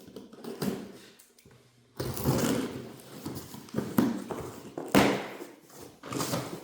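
Cardboard boxes and packing being cut open and handled: rustling, with several sharp knocks, the loudest about five seconds in.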